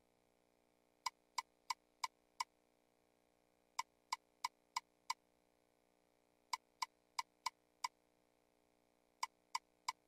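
Video slot machine reel-stop ticks: short, sharp clicks in runs of five, about three a second, one for each of the five reels landing. A new run starts every few seconds as the machine spins again.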